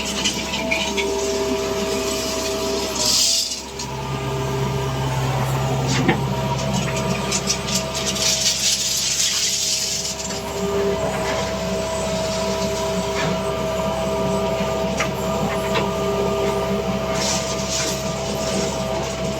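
JCB 3DX backhoe loader's diesel engine running steadily with a constant whine, with scattered clanks and patches of scraping hiss as it works.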